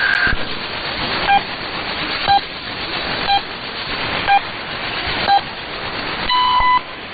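Radio station time signal heard over shortwave hiss: five short beeps one second apart, then a longer, higher-pitched beep marking the top of the hour.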